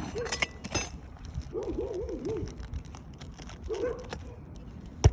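A bird's wavering, cooing call, repeated in a few short phrases, over scattered light clicks.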